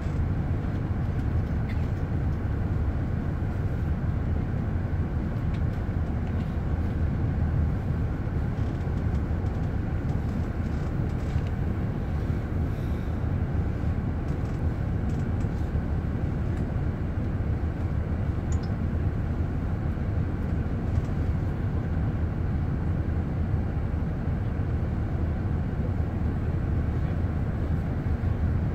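Steady low engine rumble heard inside a stopped bus, its engine idling.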